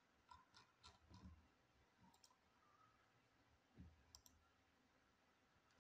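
Near silence broken by a scatter of faint, irregular computer mouse clicks.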